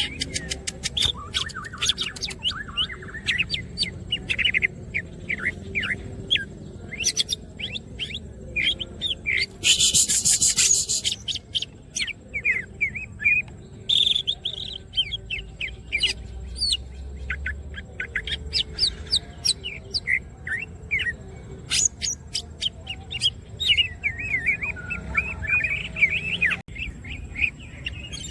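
Green leafbird (cucak ijo) singing: a rapid, varied stream of chirps and whistled notes, broken about ten seconds in by a loud, harsh burst that lasts about a second.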